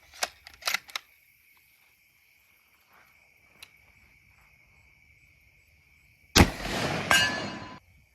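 A rifle bullet striking an 8-inch AR500 steel gong near the microphone: a loud sharp smack about six seconds in, followed by about a second and a half of the steel ringing and the shot's report. A few sharp ticks come in the first second.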